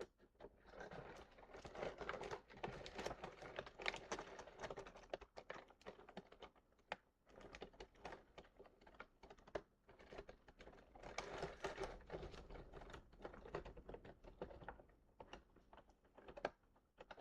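Faint, busy small clicks and light rustling of a plastic action figure being handled and turned over in the hands.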